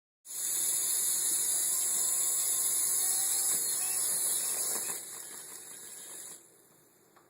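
Small electric motor and rotor of a toy helicopter running with a steady high whirring hiss. It eases down about five seconds in and dies away to near silence about a second before the end.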